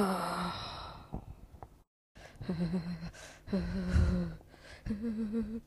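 A voice making strained gasping, choking noises in several short wavering bursts, with a brief dead silence about two seconds in.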